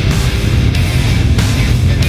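Loud heavy metal music with distorted electric guitars and drums.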